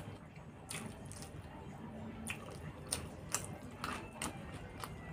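Close-up eating sounds of a person chewing rice and curry eaten by hand: wet chewing and squishing, with sharp mouth clicks and smacks about every half second to a second.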